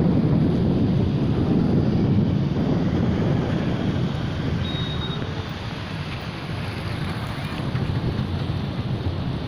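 Swollen floodwater of the Penna river rushing, a dense steady noise with wind buffeting the microphone.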